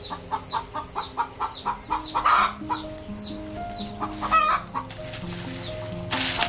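Chickens clucking in quick repeated calls, about four a second, with louder cackles about two seconds in and again past four seconds, over soft piano music.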